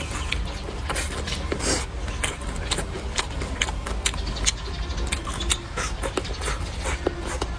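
Close-miked eating: chewing and mouth sounds with many short sharp clicks, over a steady low hum.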